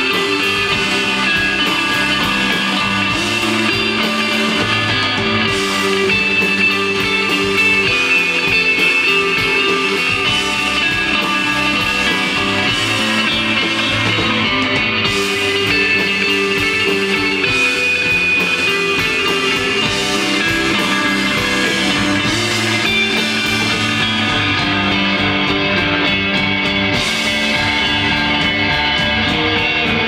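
Live rock band playing: electric bass, electric guitar and drum kit in a steady psychedelic groove, with no singing.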